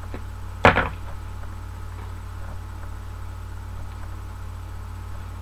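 One sharp click about a second in, from handling a plastic sealing pouch at a food sealer, over a steady low electrical hum.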